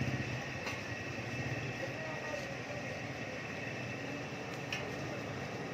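Small electric forge blower running steadily, pushing air into a charcoal fire: a constant high whine over a rush of air. A faint clink about a second in and another near the end.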